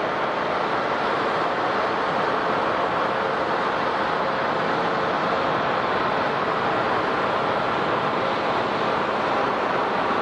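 Airliner engines running: a steady, even rushing noise with a faint steady tone in it.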